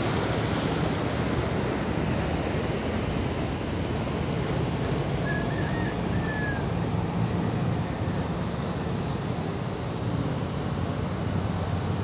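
Wake waves from a passing boat washing and lapping against the riverbank, with wind on the microphone and a steady low engine hum underneath.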